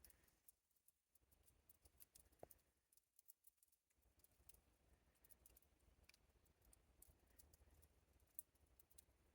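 Faint, irregular dripping of water drops seeping from rock, heard as many small ticks at uneven intervals with a few fuller drops among them.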